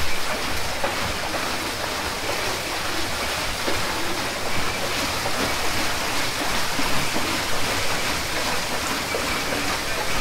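Water splashing and streaming steadily off the paddles of a turning wooden water wheel into the water below.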